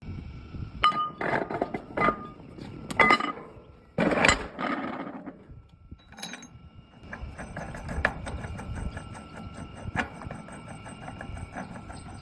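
Irregular clattering knocks and clinks of hard objects for the first few seconds, then a small machine running with a steady hum and fast, even ticking.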